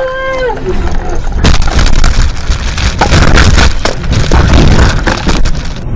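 Car crash: a short pitched wail at the start, then from about a second and a half in a long run of heavy crashing bangs and impacts as the car tumbles over.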